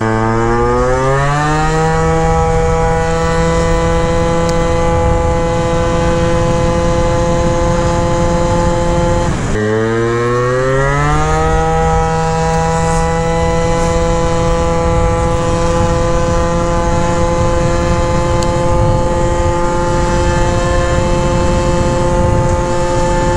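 Honda Elite scooter's 72cc Polini two-stroke engine, breathing through a prototype S23 expansion-chamber pipe, pulling at full throttle. Its pitch climbs over about two seconds and then holds steady and high while the scooter gains speed. About ten seconds in it drops briefly, then climbs and holds again.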